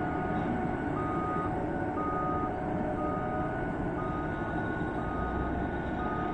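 Backup alarm of a mining dump truck beeping about once a second, each beep about half a second long, over the steady rumble of heavy mining machinery.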